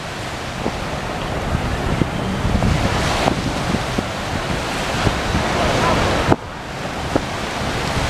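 Surf breaking on a sandy beach under strong wind, with wind buffeting the microphone in a low rumble. The rush dips suddenly about six seconds in.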